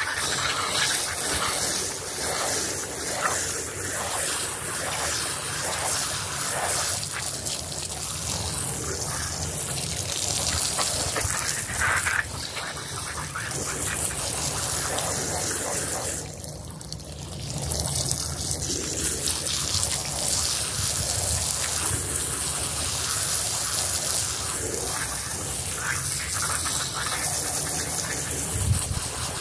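Jet of water spraying onto a soaked rug, splashing steadily. It lets up briefly about halfway through.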